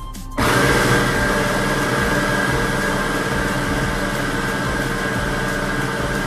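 Electric blender motor switched on about half a second in, running loud and steady at one speed.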